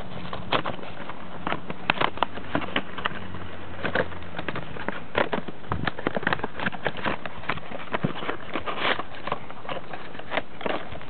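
Irregular small clicks and taps of a plastic toy Gaia Memory being handled, over a steady hiss. A faint low hum sits underneath for the first few seconds.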